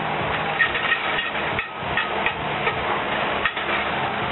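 Metal fork clinking and scraping against a cast-iron skillet as shredded cauliflower is stir-fried, with irregular sharp clicks over a steady hiss and low hum.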